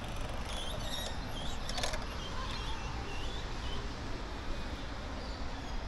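Outdoor ambience: a steady low rumble with a few short, high bird chirps in the first two seconds and a brief clatter near two seconds.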